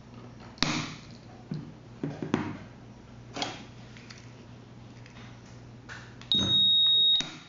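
A few separate clicks and knocks, then a loud, high, steady electronic beep lasting about a second near the end.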